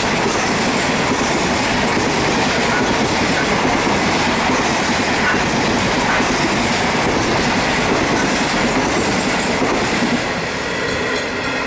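Empty grain train's wagons rolling past at speed, a steady rumble of wheels with clickety-clack over the rail joints. About ten seconds in the noise drops as the last wagons go by.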